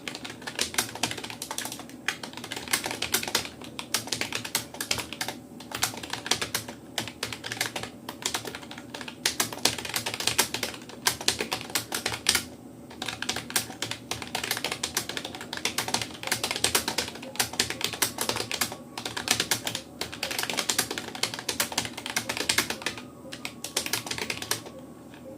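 Rapoo computer keyboard being typed on fast and continuously, a dense run of key clicks from an alphabet, space, enter and shift key practice drill. There are a few brief pauses, and the typing stops shortly before the end.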